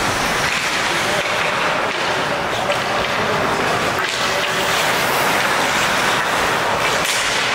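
Steady ice-rink ambience during play: an even, noisy rush with skates on the ice and faint voices.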